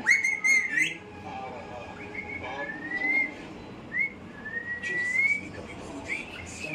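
Parrot whistling: a series of short, clear whistles, most of them rising in pitch, the loudest in the first second and a longer rising whistle about five seconds in.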